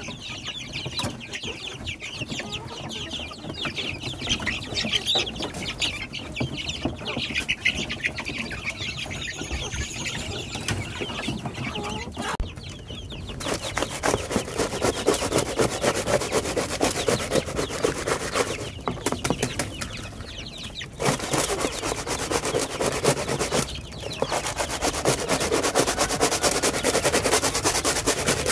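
Chickens clucking, with chirping calls over the first half. From about 13 seconds in, long bouts of dense, fast scratchy rattling come in and out on top of the clucking.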